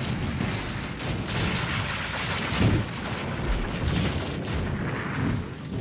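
Film sound effects of a building wall breaking apart: a continuous rumble of crashing concrete rubble with several heavy booms, the loudest about two and a half seconds in.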